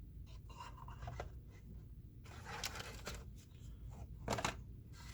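Light handling sounds of cardboard and card pieces being moved and set down: soft rubbing and scraping with a few small taps, a little louder past halfway and again near the end.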